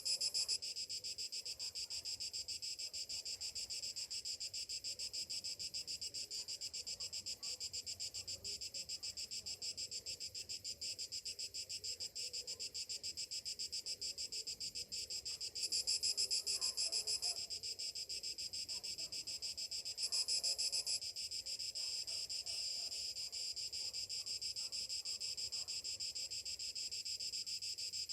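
Chorus of summer cicadas buzzing steadily in a high-pitched, rapidly pulsing drone, swelling louder for a couple of seconds about 16 seconds in and briefly again about 20 seconds in.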